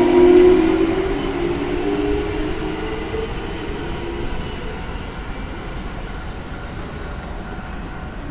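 Kintetsu 1233-series train's Hitachi GTO VVVF inverter whining, several tones rising slowly in pitch as the train accelerates, then fading out about four seconds in as the train draws away.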